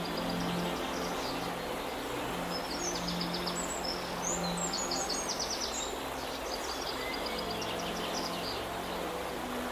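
Steady rush of flowing river water, with songbirds trilling and chirping repeatedly high above it. Soft low held notes come and go underneath.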